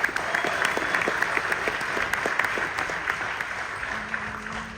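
Audience applauding, many hands clapping at once, fading toward the end.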